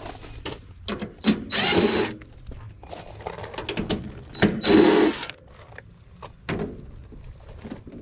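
DeWalt 20V cordless impact driver running in two short runs about three seconds apart, backing out the sheet-metal screws of a heat pump condenser's access panel, with clicks and knocks of handling the panel in between.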